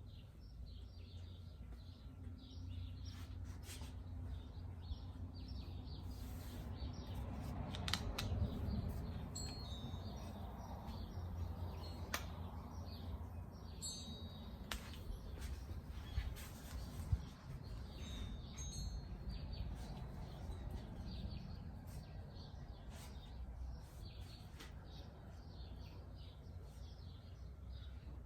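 Hands rubbing and kneading during an outdoor massage, over a steady low rumble, with birds chirping now and then. A few sharp clicks come in the middle.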